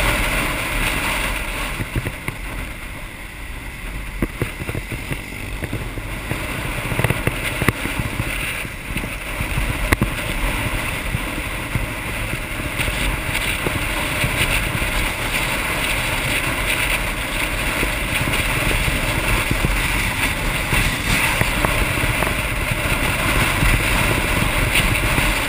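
Motorbike riding along at road speed, heard through the bike-mounted action camera's microphone: a steady engine and road rumble under wind rushing over the microphone, with a few brief knocks.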